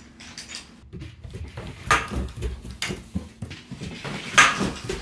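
Scuffling and clattering as a puppy scrambles across the floor on its leash, with short, sharp noisy bursts about two seconds in and again about four and a half seconds in.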